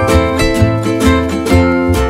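Background music: strummed plucked strings over a bass line and a steady beat of about two beats a second.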